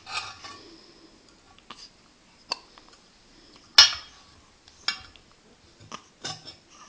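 A baby hiccuping: a run of short, sharp hiccups at irregular intervals of about a second, the loudest near the middle.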